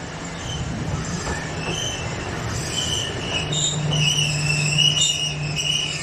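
Wheels of a Keifuku (Randen) electric railcar squealing as it pulls in alongside the platform, high wavering tones that grow loudest in the second half. A steady low hum from the car joins in about three and a half seconds in and stops near the end.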